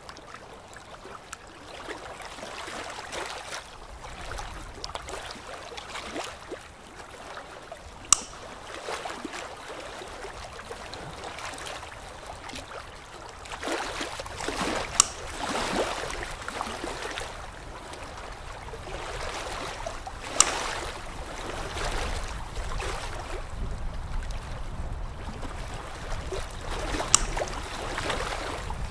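A steady, watery hiss of chairside dental suction, with four sharp clicks of metal instruments against the ceramic brackets and archwire spread through it.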